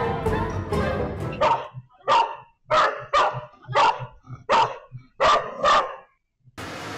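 A dog barking: a run of about eight short barks, roughly two a second, after a stretch of background music.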